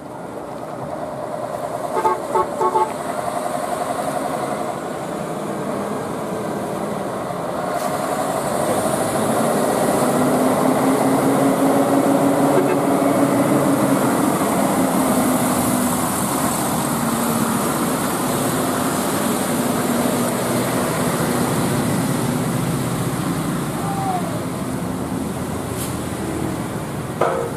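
A few short horn toots in quick succession about two seconds in, then a heavily loaded diesel truck climbing the hill, its engine drone building and loudest as it passes, with a high whine over it. Another short horn blip near the end.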